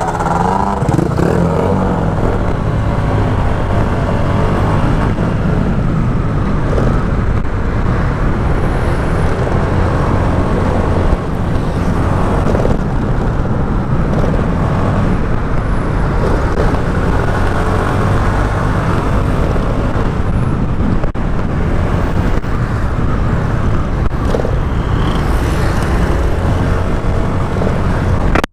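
Honda SH125i scooter's single-cylinder engine running while riding through city traffic, with a steady heavy rumble of wind on the microphone and surrounding car traffic.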